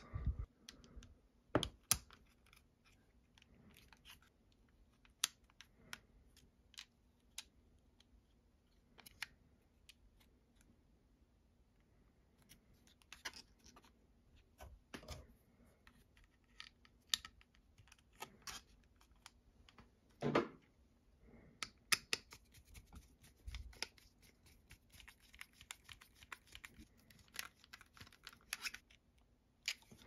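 Scattered small clicks and taps of plastic and metal at irregular intervals, with a couple of louder knocks: hands fitting M3 nuts and screwing bolts into a 3D-printed plastic battery adapter.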